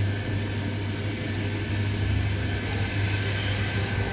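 Steady low hum with a hiss inside an ÖBB Nightjet couchette coach, the carriage's onboard equipment running. A faint steady whine sits over the hum.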